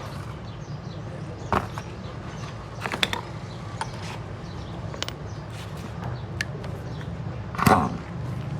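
Hand tools clicking and clinking on metal engine parts, with a few sharp knocks scattered through, the loudest near the end, over a steady low hum.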